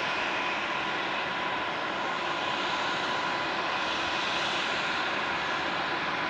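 Beechcraft King Air 350's twin Pratt & Whitney PT6A turboprop engines running steadily: a continuous whine, with a steady tone near 1 kHz, over a broad rush of propeller and engine noise.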